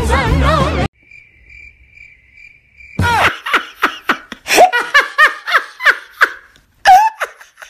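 Music cuts off about a second in. After a faint, pulsing high chirp, a person laughs in rapid, loud, high-pitched bursts for several seconds.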